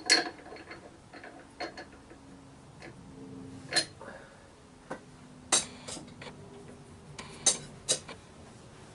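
Scattered sharp metallic clicks and knocks, about eight of them at uneven intervals, from tool handling at a wood lathe. Under them is a faint steady hum from the lathe running at about 1100 RPM.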